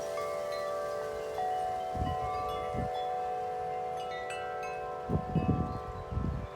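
Wind chimes ringing in strong wind, with many long metallic tones overlapping and new strikes setting in. Gusts buffet the microphone with a low rumble a few times, most heavily in the last second and a half.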